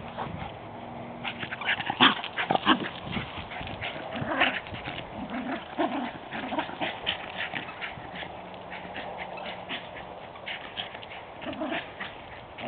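Small chonzer (schnauzer–bichon mix) dog playing and running with a ball, making a rapid, irregular series of short sharp sounds, with a few brief low vocal sounds among them.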